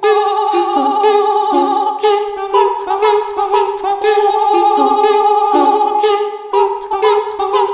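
Several layered a cappella voices singing sustained harmony notes that step from chord to chord, with sharp mouth clicks of vocal percussion over them, recreating a drama's score with voices alone.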